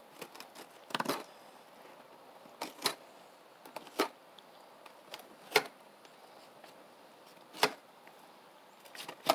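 Fillet knife clicking and crunching as it is worked along the rib bones of a lookdown (moonfish) being filleted, in about seven short, sharp, irregular clicks, the loudest a little past the middle.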